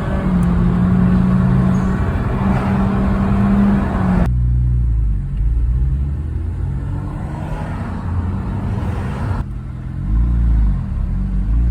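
Mazda FD RX-7's twin-turbo 13B rotary engine running. It holds a steady note for about four seconds, then the sound changes abruptly to a lower, rougher running and changes again about nine seconds in, with the revs rising and falling near the end.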